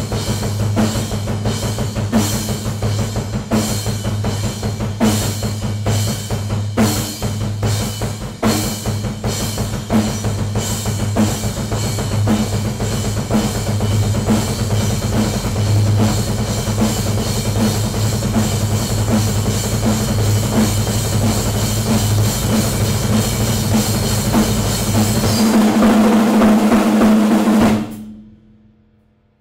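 Drum kit played fast: a rapid, continuous stream of bass drum strokes from the foot pedal, with snare and cymbal hits over it. It builds to its loudest just before cutting off abruptly near the end.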